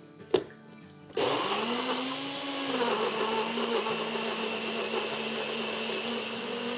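Personal blender: a click as the cup is pressed down onto the base, then about a second in the motor starts whirring, puréeing tomato, coriander, green chillies and garlic into a wet green chutney. Its hum wavers once, then holds steady.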